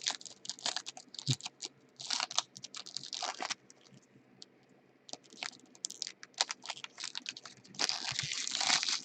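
Baseball trading cards being handled: a run of quick light clicks as cards are flicked and slid through the hands, with two longer rustling bursts, one about two seconds in and one near the end, as packs and cards are worked open and shuffled.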